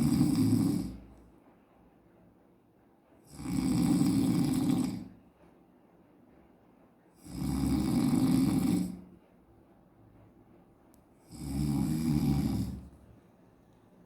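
A man snoring loudly in regular long snores about every four seconds: the tail of one at the start, then three full ones, with quiet gaps between.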